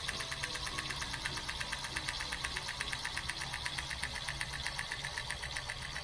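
Mini washing machine for makeup sponges running, its small electric motor humming with a rapid, even pulse as it churns a makeup sponge in soapy water.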